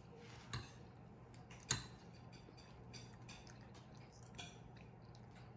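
A few faint clicks of a metal spoon against a bowl, the clearest a little under two seconds in, over a low steady room hum.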